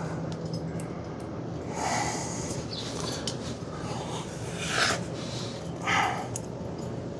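A few short, breathy exhales, the strongest about two, five and six seconds in, over a low steady hum, with a few faint small clicks.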